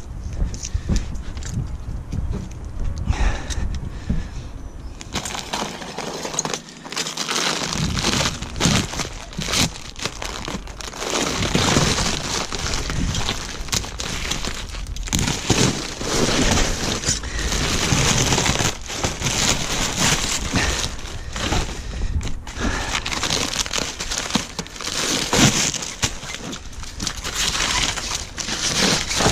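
Hexagonal honeycomb kraft-paper wrapping being torn and pulled off a paddleboard: a dense crinkling and tearing that starts about five seconds in and goes on.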